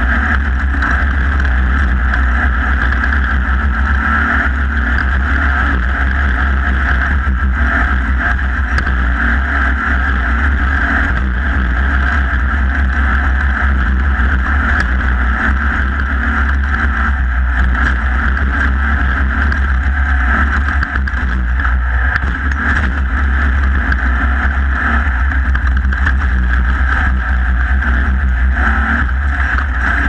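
Off-road race car's engine running hard at racing speed across dirt, picked up by a camera mounted on the car, with a strong steady low rumble from vibration and wind on the microphone.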